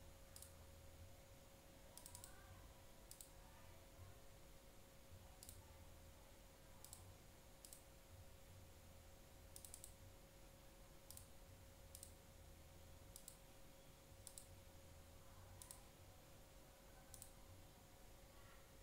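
Faint, scattered clicks of a computer keyboard and mouse, about one a second and some in quick pairs, over a faint steady hum.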